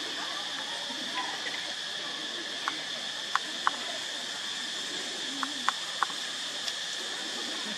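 Steady insect chorus, an even high-pitched hum. A few short sharp ticks come in two groups of three around the middle.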